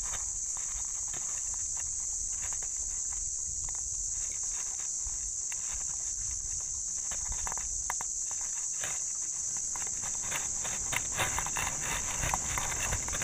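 Insects droning steadily at a high pitch, with scattered light clicks and taps that come more often near the end.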